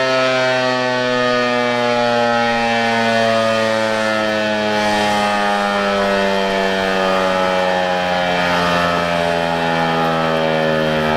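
ASC T-128 outdoor tornado warning siren sounding loud at close range, its tone sliding slowly and steadily down in pitch as the siren winds down.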